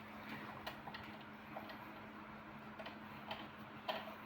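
Faint, irregular small clicks and taps of a sewing machine's parts being handled as its bottom thread is got at, over a faint steady hum.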